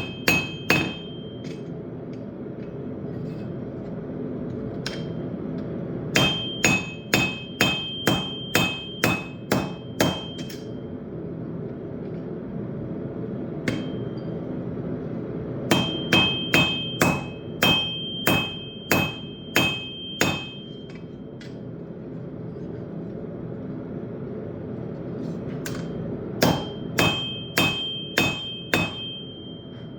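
Blacksmith's hammer striking hot steel on an anvil in runs of about ten blows, two to three a second, the anvil ringing after each blow, with pauses of several seconds between runs. A steady low rushing noise runs underneath.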